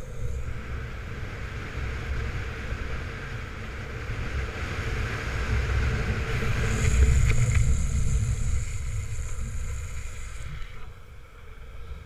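Wind buffeting the microphone during a fast downhill longboard run, over the hiss of urethane longboard wheels rolling on wet asphalt. A higher hiss joins for about four seconds around the middle, where it is loudest, and the rush eases off near the end.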